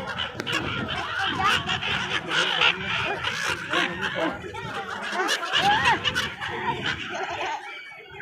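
A flock of gulls calling, many short cries overlapping, with wind buffeting the microphone.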